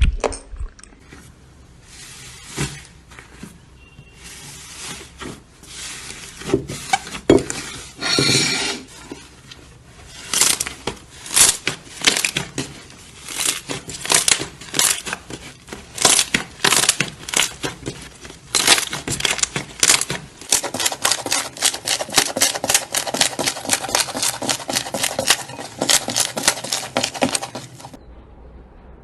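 Slime being squeezed and poked by hand, giving a long run of sharp crackles and pops that come quicker and denser towards the end.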